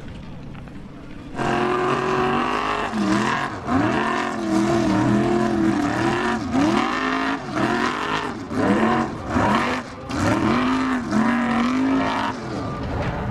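Formula Offroad buggy engine revving hard, its pitch rising and falling again and again as the wheels spin on a steep dirt climb, with dirt spraying from the paddle tyres. It starts abruptly about a second and a half in and drops away shortly before the end.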